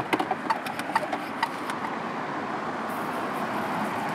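Freshower portable pressure shower being hand-pumped, a quick run of clicks and knocks, then a steady hiss of water spraying from its nozzle from about three seconds in, rinsing an electric surf fin.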